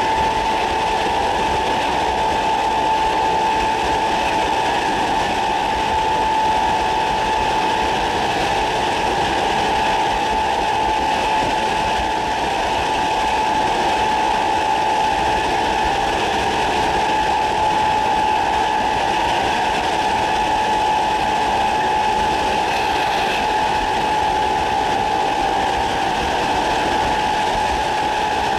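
Class 317 electric multiple unit's GEC G315BZ traction motors whining at a steady pitch while running at speed, over the rushing noise of wheels on rail.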